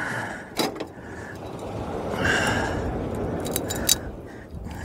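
Small metallic clicks of a fishing hook and line being handled while working the hook out of a wobbegong shark: a couple about half a second in and a quick cluster of three near four seconds. A long rushing noise swells through the middle.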